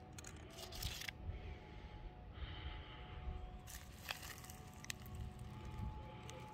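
Faint outdoor background with a low steady rumble and a few brief rustles of avocado leaves and stems being handled, about a second in and again near four seconds in.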